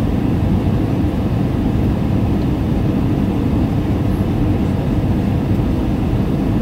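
Airliner cabin noise heard from inside the cabin during the descent to land: a steady low rumble with no change in level.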